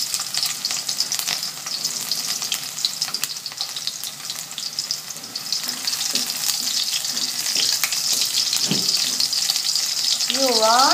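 Garlic cloves sizzling and crackling as they sauté in vegetable oil in a wok, with a spatula stirring and scraping them around the pan.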